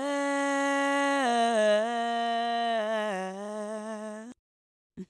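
A voice in the show's intro jingle holds one long sung or hummed note that steps down in pitch a few times and wavers near the end, then cuts off suddenly a little after four seconds in.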